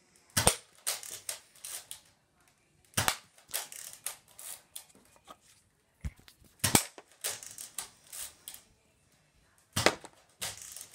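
Nerf foam-dart blaster firing about four times, roughly three seconds apart. Each shot is a sharp pop followed by a second or so of smaller clicks and rattles.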